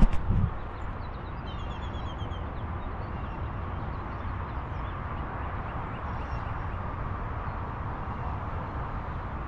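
Wind rumbling on the microphone over a steady outdoor background, after a bump of the camera being handled at the very start. A small bird chirps a quick run of notes about two seconds in.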